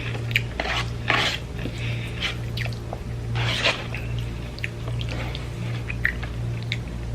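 Close-up eating sounds: chewing and wet mouth smacks with scattered clicks, and two brief louder crunchy or rustling bursts about one and three and a half seconds in. A steady low hum runs underneath.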